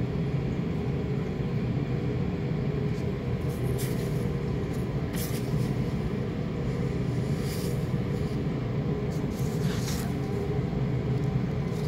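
Steady low mechanical hum of room machinery, with several brief rustles of a paper handout being handled with a gloved hand.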